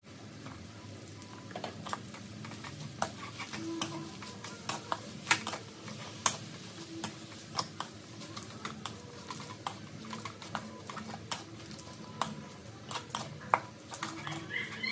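Wooden spatula scraping and knocking against a steel wok while stir-frying, with irregular sharp clacks about once or twice a second.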